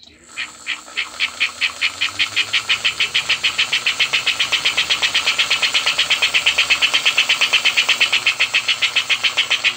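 American Flyer HO-scale smoking tender's smoke unit, driven by a homemade copper piston in place of the original rubber bellows, chuffing in a steady rhythm of hissing puffs. The chuffs speed up over the first couple of seconds as the locomotive gets going, then hold at about seven a second.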